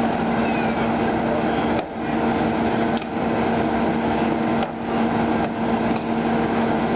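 Power unit of a Hurst hydraulic rescue tool running at a steady, constant pitch while the tool works a car door free at its hinges, with a few brief clicks and knocks from the metal.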